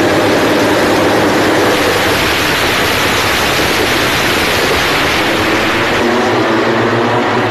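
A pack of MotoGP racing motorcycles, 1000 cc four-cylinder four-strokes, at full throttle together down the straight. Their engines blend into one loud, steady, dense engine noise.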